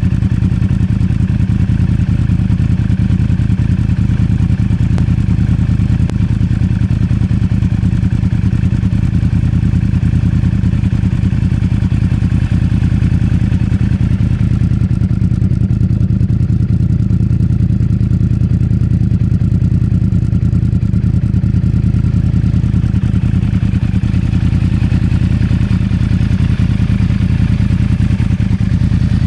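Yamaha R1's inline-four engine idling steadily through twin BOS aftermarket silencers.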